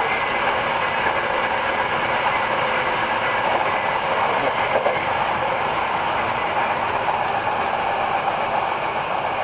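Hankyu 8000-series electric commuter train running steadily along the track, a continuous rumble of wheels on rail and running gear heard from inside the front car.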